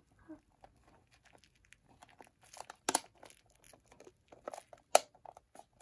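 Thin clear plastic crinkling and crackling as it is peeled off a new speed cube, in scattered small bursts with a few sharper cracks about three and five seconds in.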